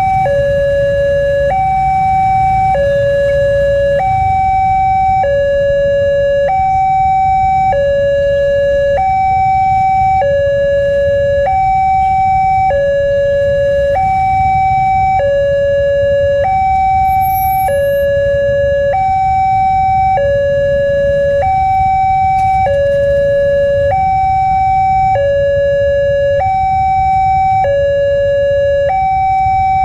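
Railway level-crossing warning alarm sounding an electronic two-tone signal, alternating steadily between a lower and a higher tone about every three-quarters of a second, over a low rumble.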